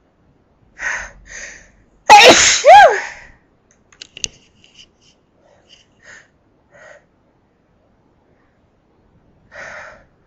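A woman sneezes loudly: two quick sharp in-breaths, then a double sneeze whose voiced cry falls steeply in pitch. Small sniffs and breaths follow.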